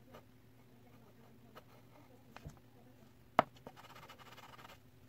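Pencil on paper: faint scattered ticks, then a sharp tap about three and a half seconds in, the loudest sound, followed by about a second of light scratching as the pencil strokes across the sheet.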